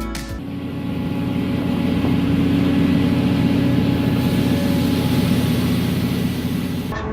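Heavy earth-moving machine's diesel engine running steadily under load, a low steady drone with rough mechanical noise.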